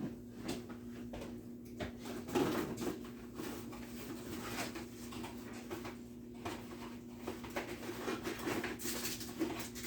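Light kitchen handling noises: scattered small clicks and scrapes, like a spoon and wax paper being worked, over a steady low hum.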